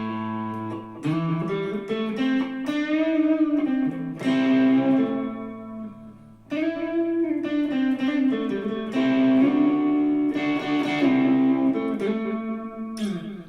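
Electric guitar played through a Boss Blues Driver overdrive pedal with a little reverb. The overdrive is mild, adding some bite to the held notes, and a short phrase is played twice.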